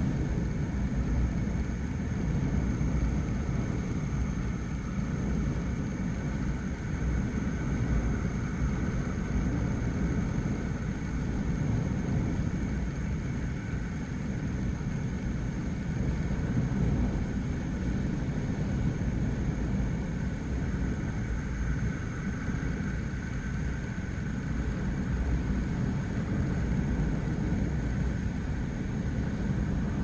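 Steady low rumble of wind buffeting the microphone, with faint steady high-pitched tones above it.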